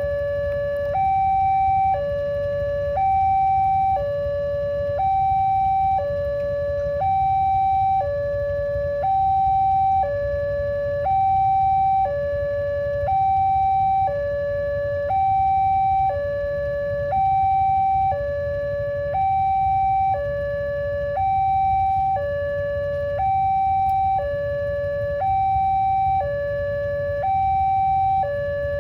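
Railway level-crossing warning siren sounding continuously, alternating between a lower and a higher tone, each held about a second, in a steady hi-lo cycle. A low rumble runs beneath it.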